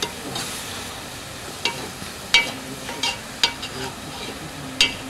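Carrots frying in oil in a plov pot with a steady sizzle. A metal skimmer stirs them and clacks sharply against the pot about six times.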